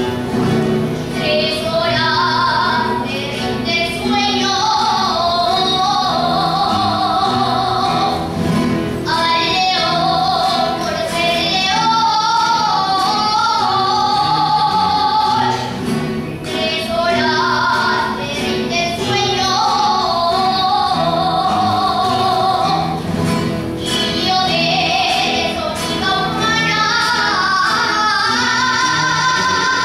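Solo female voice singing an Aragonese jota in full voice over instrumental accompaniment, holding long notes with a wide vibrato. The phrases break briefly about every seven or eight seconds.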